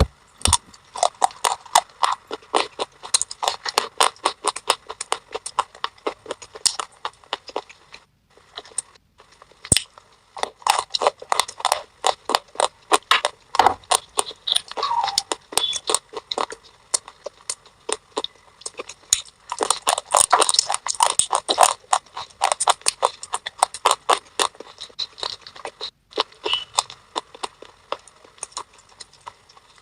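Close-up crunching and crackling of thin baked clay pot pieces and a sticky wet clay paste, in dense runs of sharp crisp clicks broken by a few short pauses.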